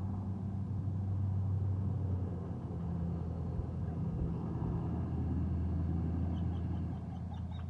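A steady low motor hum, with a short run of faint clicks near the end.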